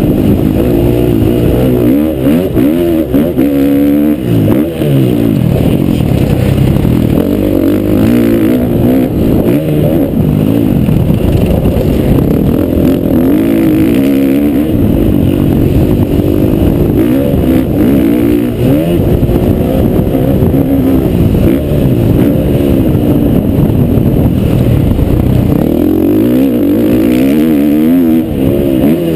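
Motocross bike engine running hard, revving up and down over and over with throttle and gear changes, heard close up through a camera mounted on the bike.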